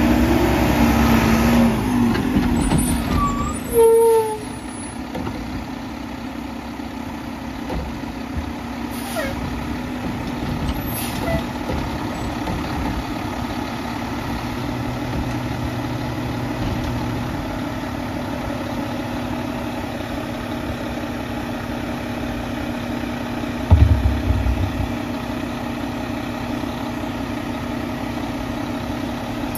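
Mack LEU garbage truck pulling up and stopping, with a brake squeal and a sharp air-brake release about four seconds in, then idling steadily while its Curotto-Can hydraulic arm lifts and tips a cart. A single heavy thump comes near the end.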